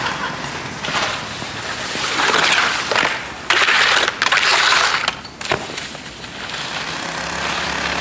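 Skis sliding and scraping over snow and along a concrete ledge, in loud swells of scraping noise about two to five seconds in that break off briefly just after five seconds.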